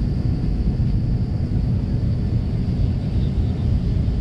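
Steady low rumble of an Airbus A320-200's jet engines and rushing air, heard inside the passenger cabin.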